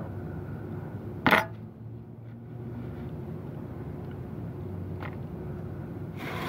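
A metal fork clinks once, sharply, against a dish about a second in, over a steady low hum.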